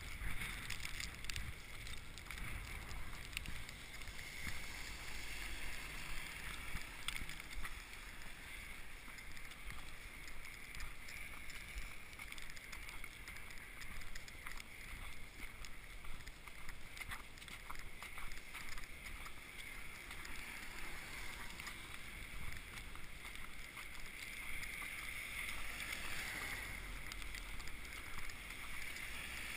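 Footsteps crunching and swishing through fresh snow, steady and unbroken, with a light hiss of wind on the microphone.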